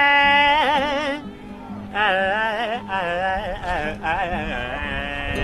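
Music: a wordless melody, sung or played, that wavers up and down in pitch, breaks off about a second in and resumes about two seconds in, over a steady low accompaniment.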